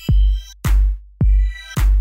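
Electronic background music: a deep, heavy kick drum hits a little under twice a second, with high synth tones ringing between the beats.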